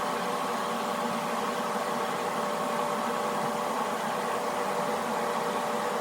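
Whirlpool bathtub's jet pump running steadily, churning the water into foam: an even rushing hum with a constant whine.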